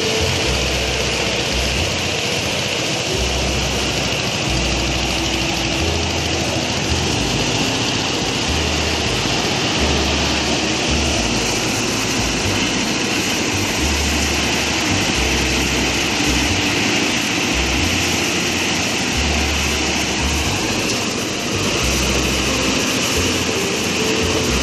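Engine-driven rice threshing machine running steadily, with a low rumble that swells and drops every second or two.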